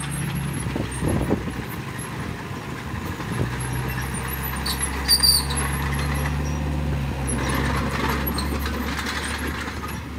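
Small bulldozer's diesel engine running steadily as it pushes dirt, with a few knocks about a second in and brief high squeals around the middle.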